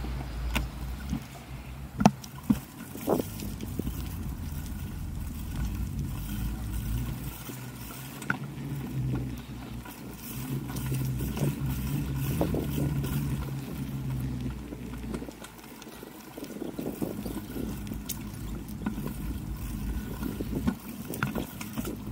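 Low, steady rumble of movement outdoors, from wind on the microphone and wheels rolling over pavement. A few sharp clicks break through, the loudest about two seconds in.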